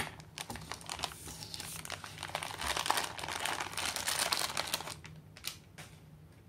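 Thin plastic packet crinkling and rustling as it is squeezed and handled and a compressed sponge slides out of it. The crinkling stops about five seconds in, leaving a couple of soft ticks.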